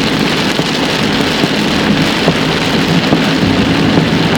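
Heavy rain pelting a vehicle in a thunderstorm: a steady, dense hiss without a break.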